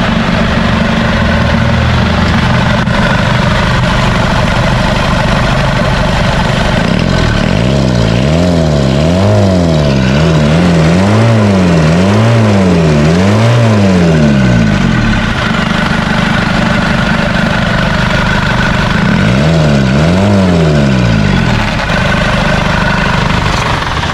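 Isuzu D-Max diesel engine running on a newly fitted replacement injection pump, idling steadily, then revved up and down in quick repeated blips for several seconds, idling again, and blipped a few more times near the end.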